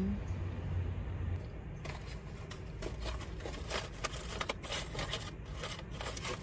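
Paper wrapping crinkling and rustling inside a cardboard takeout box as it is handled, starting about two seconds in, over a low steady hum.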